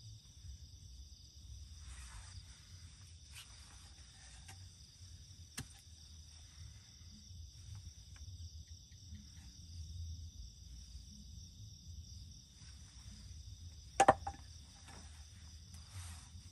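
Steady high-pitched chorus of night insects, with brief rustling now and then and one sharp knock near the end.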